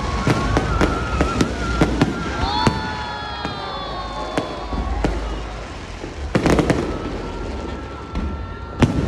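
Aerial fireworks display going off: a string of sharp bangs and crackles over a steady low rumble, with whistling shells gliding in pitch. A dense burst of crackling comes about six and a half seconds in.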